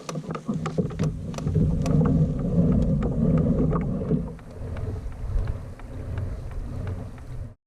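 Wind rumbling on the microphone aboard a kayak on open water, with scattered light clicks and knocks; it cuts off suddenly near the end.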